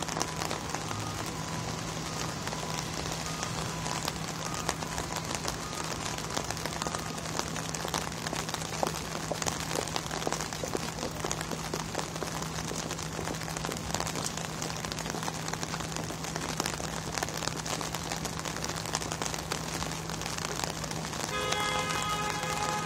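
Steady rain falling on wet pavement, an even hiss with many small drop ticks, over a low steady hum. Near the end a series of pitched tones begins.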